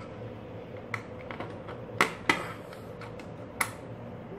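Metal mounting plate of a Deepcool Captain 240 EX CPU cooler bracket being pressed onto the standoff screws on a motherboard: light metal clicks and taps, with three sharper clicks, two close together about two seconds in and one more about a second and a half later.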